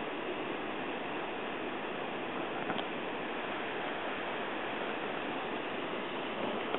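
Steady rush of river water running through rapids, with one brief click a little under halfway in.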